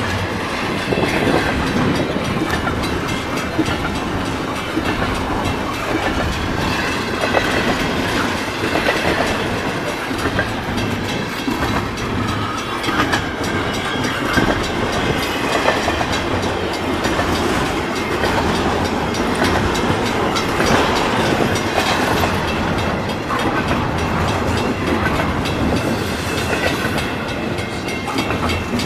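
Double-stack container train's well cars rolling past: a steady rumble and rattle of steel wheels on rail, with many short clicks.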